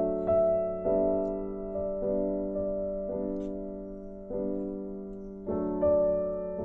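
Background piano music: notes and chords struck one after another, each ringing and fading before the next.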